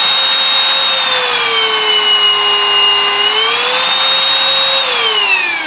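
Silvercrest SHAZ 22.2 F7 cordless cyclone vacuum cleaner's motor running with a steady whine. Its pitch dips for a couple of seconds and comes back up, then winds down, falling in pitch near the end as it is switched off.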